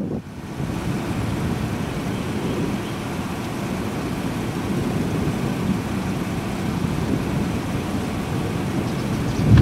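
Steady low rumble of wind buffeting the camera microphone, swelling louder right at the end.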